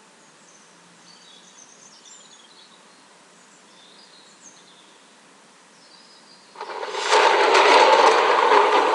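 Faint high bird chirps over a soft hiss. About six and a half seconds in, a loud grinding rumble starts suddenly and keeps going: a sound effect for the heavy round stone rolling away from the tomb entrance.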